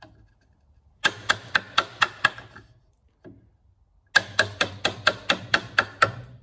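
Wooden mallet giving a bench chisel light, quick taps, about four a second, as it chops waste out of a softwood housing joint. Two runs of taps, the second starting about four seconds in after a single faint tap.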